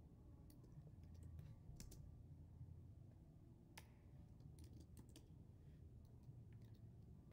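Faint, irregular keystrokes on a computer keyboard, over a low steady hum.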